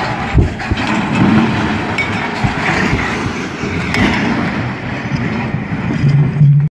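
Large precast wall slabs toppling during a crane lift and crashing to the ground: a sharp impact about half a second in, then several seconds of dense crashing and rumbling with further knocks as they come down.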